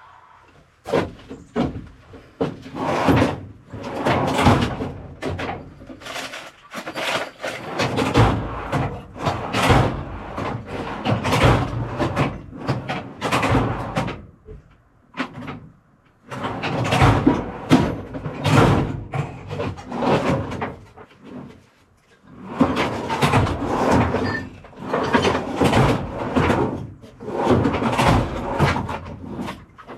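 Rummaging through containers of small electrical parts while hunting for wire nuts: a dense run of knocks, clatter and rattles. There are two short pauses, about halfway through and about two-thirds of the way through.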